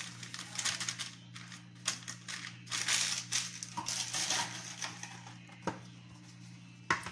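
Plastic bag crinkling in irregular bursts as raisins are shaken out of it, rustling with the plastic gloves, dying down after about five seconds, with a couple of sharp clicks near the end. A steady low hum lies underneath.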